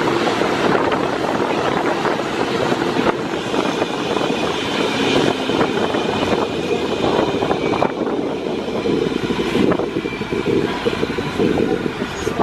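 Steady running noise of a parking-lot tram, heard from aboard while it moves.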